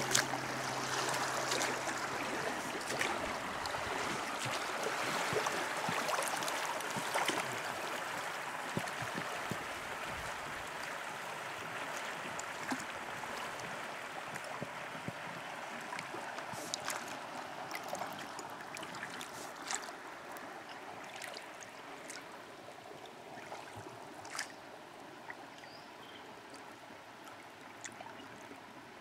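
Small river's current running over a shallow riffle, close to the water, growing gradually quieter as the water smooths out, with a few faint ticks and light splashes scattered through it.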